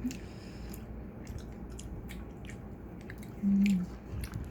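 Close-up chewing of a soft, chewy mango jelly sweet, with small irregular wet mouth clicks. A brief hummed "mm" about three and a half seconds in is the loudest sound.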